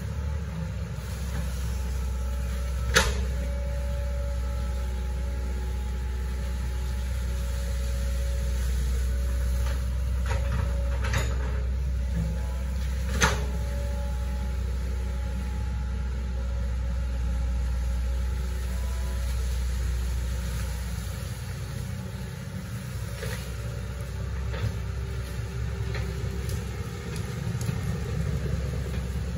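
Hitachi ZX110 excavator's diesel engine running with a steady low rumble, broken by a few sharp knocks, the loudest two about three seconds and thirteen seconds in. The rumble eases about two-thirds of the way through.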